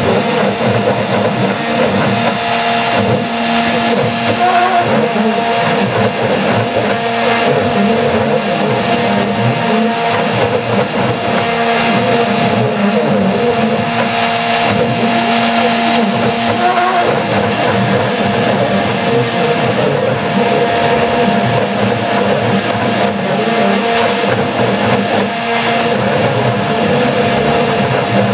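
Hitachi router spindle running steadily on a CNC machine, a V-carve bit cutting lettering into cedar, a continuous motor whine with the noise of the cut.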